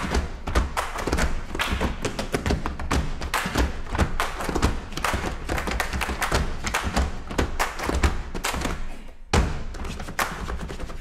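Group body percussion: a troupe's rapid, rhythmic hand claps and foot stomps on a stage floor, tightly in unison. About nine seconds in they stop dead for a moment, then start again.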